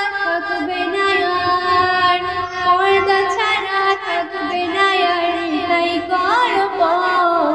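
A woman singing a Bengali Islamic gazal, drawing out long held notes that bend and swoop between the lines of lyric.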